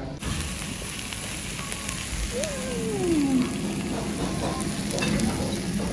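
Food sizzling on a hot plate: a steady hiss with scattered small crackles, and a short falling tone a little before the middle.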